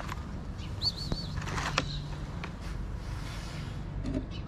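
Cats eating wet food from plastic tubs: scattered sharp clicks and mouth sounds. A short, wavering bird chirp about a second in, over a steady low hum.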